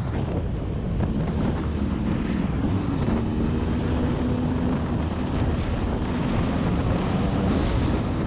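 Off-road vehicle's engine running with a steady rumble, with wind buffeting the camera microphone.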